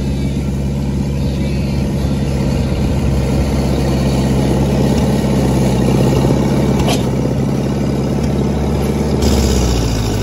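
Small farm tractor's engine running steadily at low speed as it pulls a loaded flat wagon past close by. There is one sharp knock about seven seconds in.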